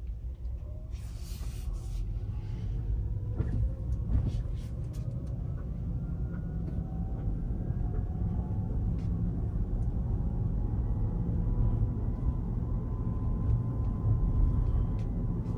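Rivian R1T electric truck heard from inside the cabin as it pulls away: a low road rumble that grows louder, with a faint drivetrain whine slowly rising in pitch as speed builds, and a couple of knocks about three and four seconds in. The owner suspected this gear noise of being abnormal.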